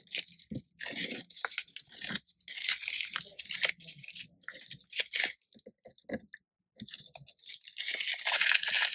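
Low-tack masking tape being peeled off card and a stencil, heard as uneven short tearing peels and paper crinkling, the longest stretch near the end.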